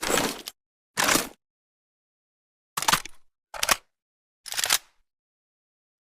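Five short mechanical clacks and rattles, each under half a second, cut apart by dead silence: homemade sound-effect pieces for an AKM rifle's mechanism rather than its firing.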